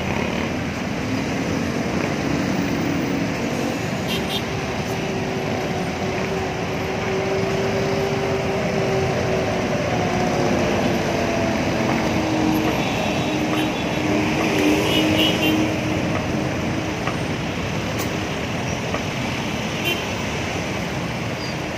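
Steady road traffic: the engines of cars, jeepneys, motorcycles and buses running in slow, crawling traffic. One heavy engine's drone stands out through the middle, slowly dropping in pitch.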